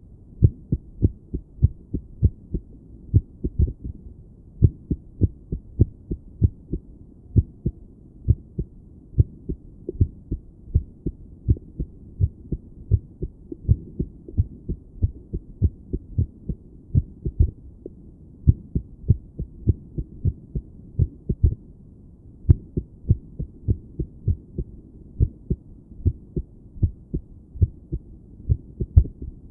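A woman's own heartbeat heard through a stethoscope: muffled, low lub-dub thumps in an irregular rhythm, with uneven gaps between beats and a brief pause about three-quarters of the way through. It is an irregular heartbeat, which the owner feels as her heart acting 'a little crazy'.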